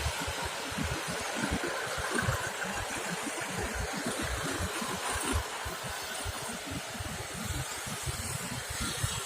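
Road traffic passing by: a steady wash of vehicle engine and tyre noise with no single vehicle standing out.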